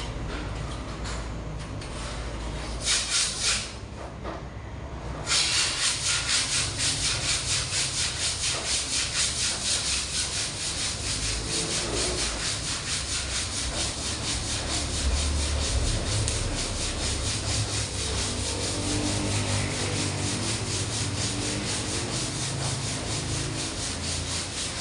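Sandpaper, 80 grit, rubbing back and forth over dried body filler on a dented panel, flattening the filler. A few strokes come first, then from about five seconds in it settles into a steady rhythm of about two strokes a second.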